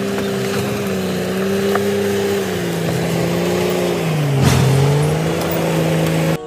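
Komatsu crawler bulldozer's diesel engine running under load as its blade pushes concrete slabs and dirt. The engine note sags about four and a half seconds in, with a sharp knock, then recovers. The sound cuts off abruptly just before the end.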